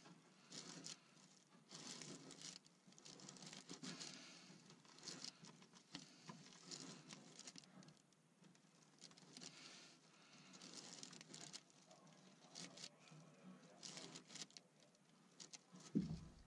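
Faint, irregular rustling and scratching of a brush on the end of a long stick pushing and dabbing a roll of epoxy-wet fiberglass tape along the inside seam of a strip-built kayak, with one knock near the end.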